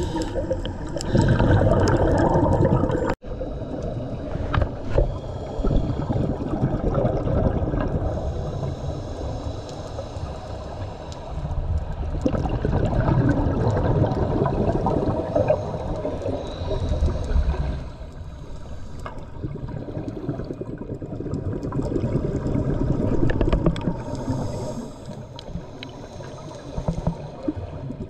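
Underwater sound of scuba breathing: a diver's exhaled bubbles rushing and gurgling, swelling and fading in surges every few seconds.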